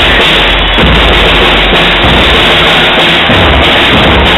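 Marching band playing close by: brass, saxophones and French horns over a bass drum and snare drums, loud and steady.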